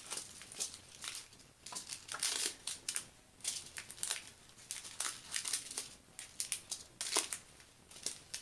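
Small plastic baggies of diamond-painting drills crinkling as they are handled and laid out, in quick, irregular crackles.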